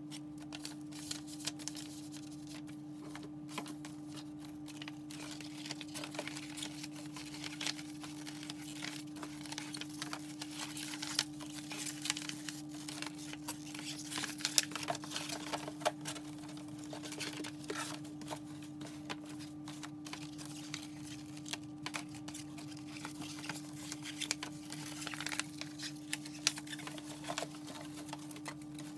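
Packaging being handled and packed: scattered crinkling, rustling and small taps and clicks from chip bags, a box and an envelope, over a steady low hum.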